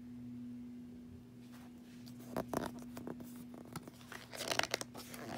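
Pages of a hardback picture book being handled and turned: paper rustling and crackling, loudest about four and a half seconds in, over a faint steady hum.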